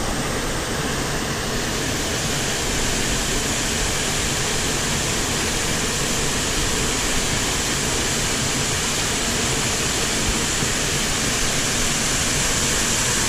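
Small mountain torrent's water rushing over rocks in a steady hiss.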